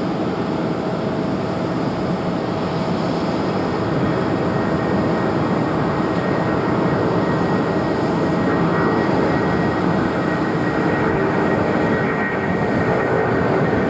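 Airbus A330-300 airliner's twin jet engines running as it rolls along the runway before takeoff: a steady engine rush with a faint steady whine on top.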